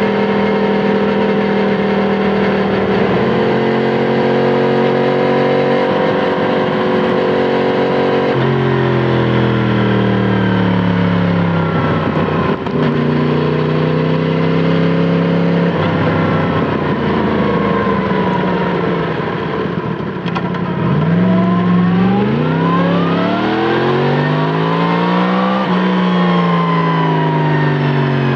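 Yamaha MT-10 SP's crossplane inline-four running through an Akrapovic titanium slip-on exhaust, heard from on board while riding. The engine note holds steady for several seconds, then falls and rises several times as the throttle closes and opens. It climbs long in revs in the last third, then eases off near the end.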